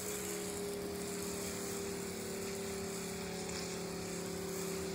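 12-volt soft wash pump running with a steady hum while the spray wand gives off a steady hiss.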